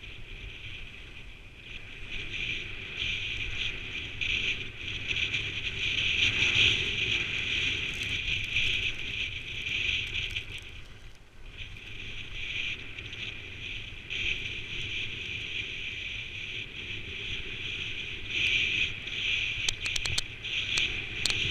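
Skis sliding and hissing over fresh snow on a downhill run, swelling and easing in waves, with wind rumbling on the microphone; a few sharp clicks near the end.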